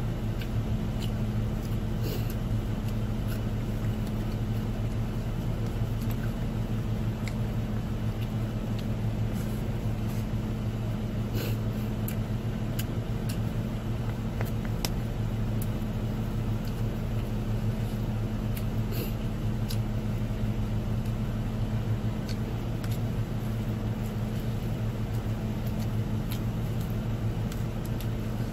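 Steady low drone of a car idling, heard from inside the cabin, with faint scattered clicks and crinkles from fingers working at food in a foil tray.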